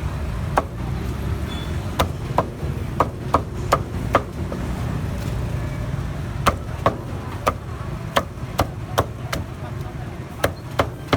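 A cleaver chopping on a cutting board in sharp, uneven strokes, some in quick runs of two or three, with a pause of a couple of seconds in the middle, over a steady low background rumble.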